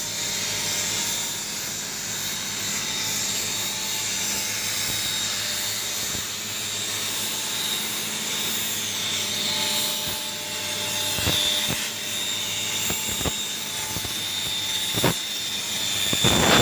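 CNC plasma cutter running: a steady hiss with a high whine, a few sharp ticks in the second half, and a louder surge of hiss at the very end.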